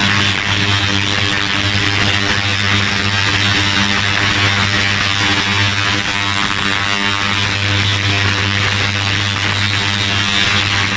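Ultrasonic cleaner bath running with its tank full of water: a steady, even buzzing hum with a hiss over it.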